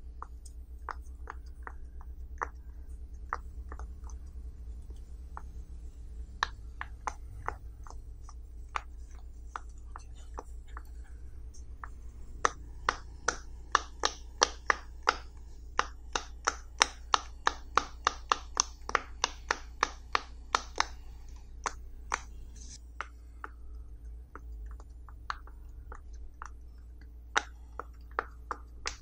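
Silicone pop-it fidget toy bubbles pushed in one at a time by a fingertip, each giving a sharp little pop. The pops are scattered at first, come in a quick, louder run of several a second through the middle, then thin out again near the end. A low steady hum runs underneath.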